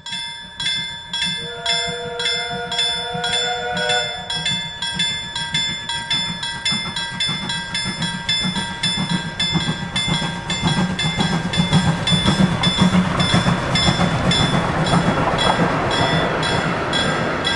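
Steam locomotive BJ B 1037 working a passenger train, its exhaust beating evenly at about two to three chuffs a second and growing louder as it approaches. Its steam whistle sounds one held chord for about two and a half seconds, starting about a second and a half in.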